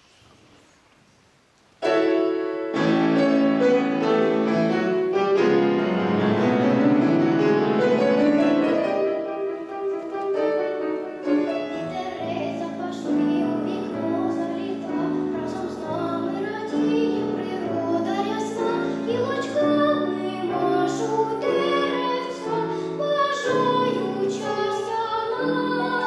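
After a short near-silent pause, a grand piano starts suddenly about two seconds in with a song accompaniment, including a long rising run. A young girl's classical-style singing voice joins over the piano later on.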